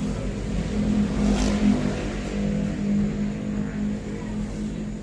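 A vehicle engine running with a steady low hum, loudest about one and a half seconds in.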